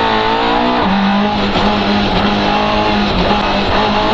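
Competition car's engine running hard at high revs, heard from inside the cabin. The pitch shifts about a second in, then holds fairly steady with a few brief dips.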